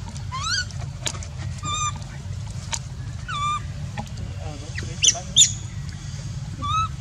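Newborn macaque crying: about six short, high-pitched calls roughly a second apart, several rising then falling in pitch, over a steady low hum.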